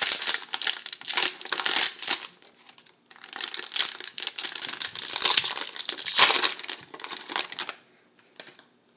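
Trading card pack wrapper crinkling as it is opened. It comes in bursts, with a short pause about three seconds in, and stops a second or so before the end.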